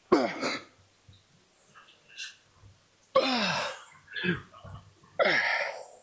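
A man grunting with hard, falling-pitch exhalations three times, at the start, about three seconds in and about five seconds in, with quieter breaths between, as he strains through reps on a heavy leg machine.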